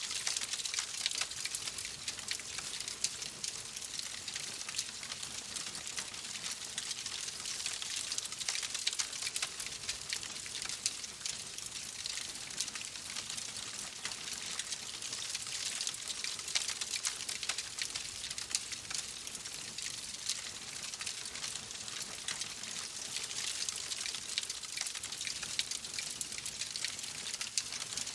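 Oak logs burning in a fireplace: a steady hiss of flame with dense, fine crackling and popping throughout.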